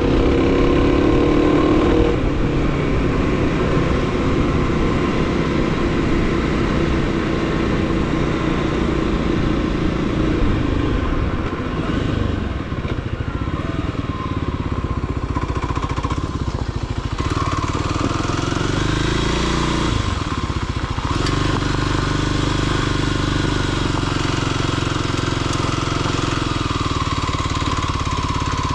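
Motorcycle engine running steadily while riding off-road, its pitch dipping and then climbing again about two-thirds of the way through as the bike slows and speeds up.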